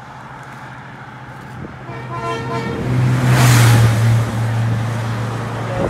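A motor vehicle passing close by on the road, its engine and tyre noise building to its loudest about three and a half seconds in and then easing off. A horn gives a short toot about two seconds in, just before the vehicle goes by.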